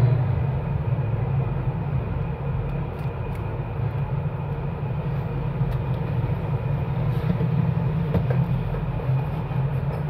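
Steady mechanical hum with a low drone and a hiss above it, unchanging throughout.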